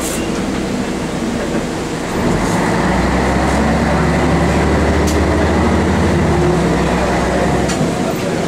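Scania L113CRB bus's rear-mounted diesel engine heard from inside the cabin. It runs low at first, pulls harder from about two seconds in with a deep rumble, and eases off shortly before the end.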